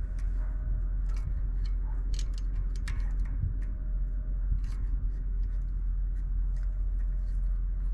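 A screwdriver and a steel snap ring clicking and scraping against the front axle shaft as the ring is worked toward its groove: a run of irregular small metal clicks over a steady low hum.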